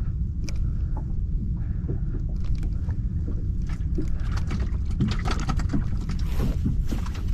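Water lapping against the hull of a small boat, with a steady low rumble of wind and water. From about five seconds in comes a run of small quick ticks as a spinning reel is wound.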